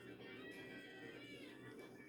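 Faint background music with steady held notes.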